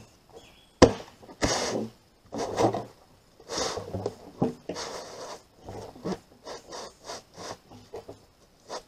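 A cut-off blue plastic barrel top being pushed and twisted down over a plastic rain barrel: repeated scraping and rubbing of plastic on plastic, with a sharp knock about a second in.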